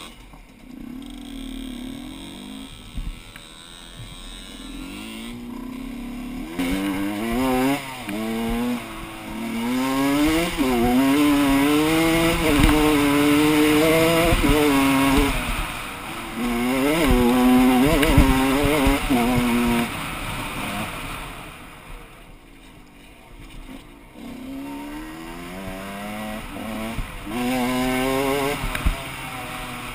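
Gas Gas EC 125 two-stroke enduro motorcycle engine being ridden, quiet at first, then revving up in repeated rising pulls that drop back as it shifts through the gears. It eases off for a few seconds past the middle, then pulls up again near the end.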